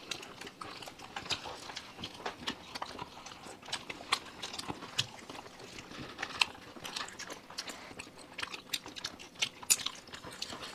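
People chewing and eating quickly, with many irregular small clicks and mouth smacks, during a race to finish chicken lollipops and satay.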